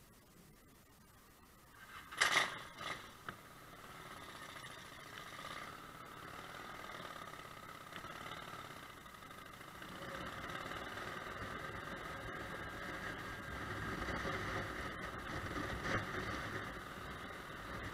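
Road and wind noise picked up by a helmet-mounted camera as a Honda Shadow VT600 motorcycle pulls away and gathers speed, growing steadily louder. A few sharp knocks about two seconds in are the loudest sounds.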